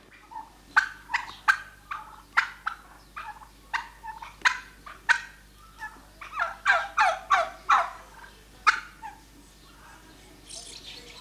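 Domestic turkeys calling: a string of short, sharp calls that come faster in a quick run about six to eight seconds in, then fall off briefly near the end.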